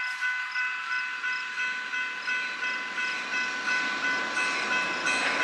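Railroad grade-crossing bell ringing steadily, about two strokes a second, as the Amtrak California Zephyr approaches. The train's low rumble builds underneath the bell.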